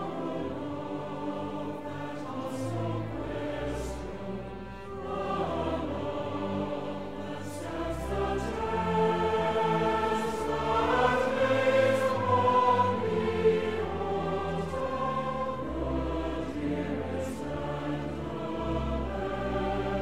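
Orchestral music with a choir singing long, sustained notes, laid over the footage as a soundtrack.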